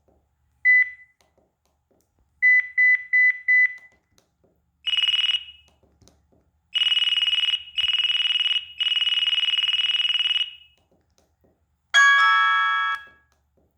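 LG enV3 cell phone's speaker playing electronic ringtone sounds. First comes a single high beep, then a quick run of five beeps. Next a harsh buzzing tone sounds in one short and three longer pulses, and near the end a chime chord rings out and fades.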